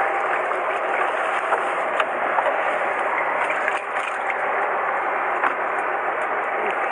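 Steady rushing noise on a fishing boat's deck, with scattered light knocks and clicks from a fish being handled.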